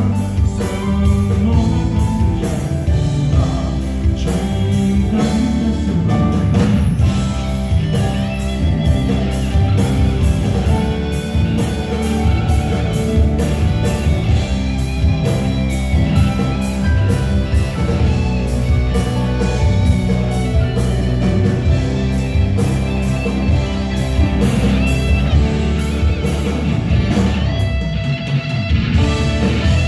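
Live rock band playing a Malay song: electric guitar over drums, with singing.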